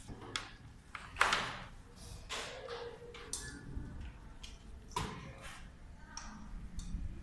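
Scattered clicks and knocks with some rustling from a power cable and its plugs being handled and connected around a computer monitor; the loudest knock comes about a second in.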